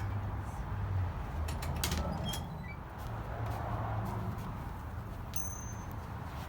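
A few light metallic clicks and clinks as BMX frame parts are handled during a tear-down, most of them about one and a half to two seconds in, over a steady low hum.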